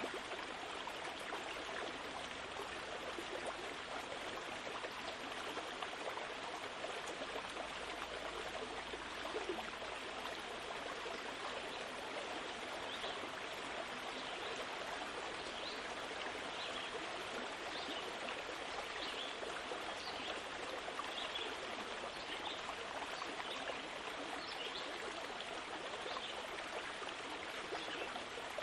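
Steady rushing noise like a flowing stream, with faint short high chirps in the second half.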